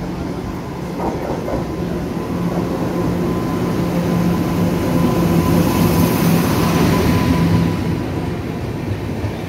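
Express passenger train arriving and running past along the platform: the locomotive, then its coaches, rolling by with a steady low hum and rumble that grows louder to a peak about six seconds in, then eases a little as the coaches follow.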